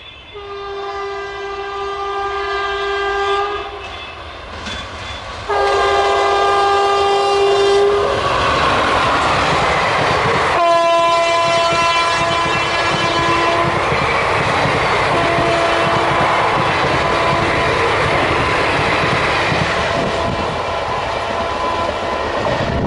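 Electric locomotive's air horn sounding two long blasts as the train approaches, then more long blasts at a slightly lower pitch once it has passed. From about eight seconds in, the loud rush and clickety-clack of the passenger coaches running past at speed on the rails.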